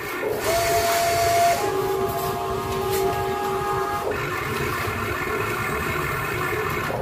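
Huina RC model excavator's electric motors whining steadily as the arm and bucket move, the pitch jumping up or down a few times as the motion changes. A brief hiss comes about a second in.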